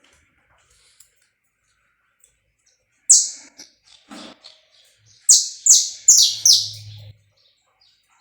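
Saffron finch calling: a single sharp, high chirp about three seconds in, then a quick run of four or five high chirps about two seconds later, each falling in pitch.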